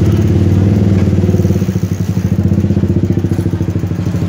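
An engine idling steadily: a low, even drone with a fast regular pulse.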